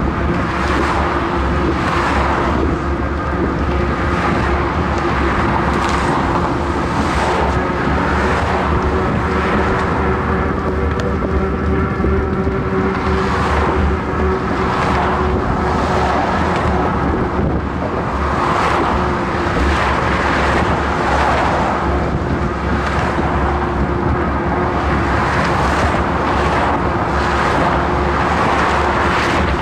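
Continuous road traffic from cars passing on the bridge roadway alongside, swelling and fading as vehicles go by. Wind rumbles on the microphone of the moving bicycle, and a faint steady hum runs underneath.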